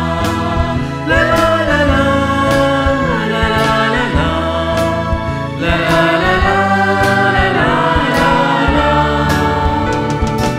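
Mixed choir of men and women singing a Hindi Christian Easter hymn over instrumental accompaniment, with held low notes and a steady beat.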